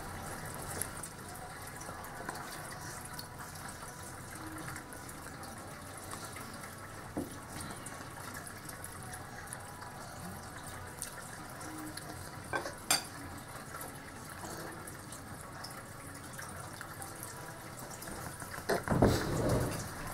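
Steady trickle of running water, as from an aquarium filter, with a couple of sharp clicks about thirteen seconds in and a brief louder sound near the end.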